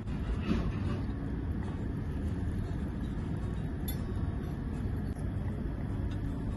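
Cooking on a miniature wood-fired clay stove with a tiny steel pot of simmering tomatoes: a steady low rumble, and a light metal clink about four seconds in as the small steel lid is lifted.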